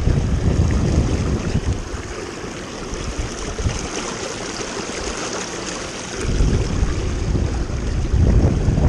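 Flowing river water with wind buffeting the microphone in a heavy low rumble that drops away for a couple of seconds midway, while a small hooked fish splashes at the surface.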